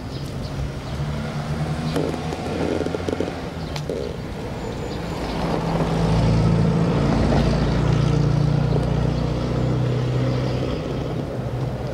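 A motor vehicle engine running, a low steady hum that grows louder about halfway through and eases off near the end.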